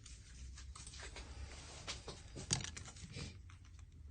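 Light handling noises, small clicks and rustling, with one sharper click about two and a half seconds in.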